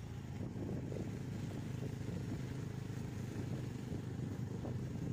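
A vehicle engine running steadily, a continuous low drone with no change in pitch.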